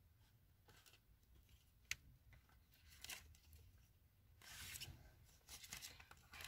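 Faint rustling of paper bills and cash envelopes being handled, with one sharp tick about two seconds in and a longer rustle a little before the five-second mark.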